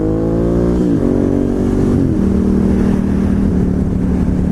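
Ducati Hypermotard 1100S's air-cooled L-twin engine pulling under acceleration. Its pitch climbs and drops sharply twice, about one and two seconds in, as it shifts up through the gears, then holds steady at a cruising speed.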